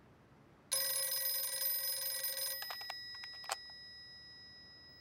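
Desk telephone bell ringing for about two seconds, starting under a second in. It stops abruptly as the handset is lifted with a few clicks and clatters, and the bell's tone fades away.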